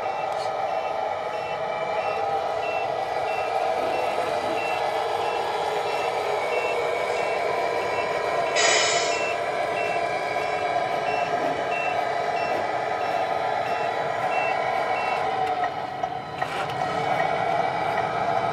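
Tamiya MFC-03 sound unit in a 1/14 Scania RC truck, playing a steady simulated diesel engine drone with a regular reversing-alarm beep over it while the truck backs its trailer. The beeps stop a few seconds before the end. A short hiss comes about halfway through.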